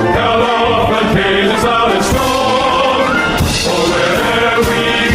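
Background music: a chanted, choir-like song with a steady beat.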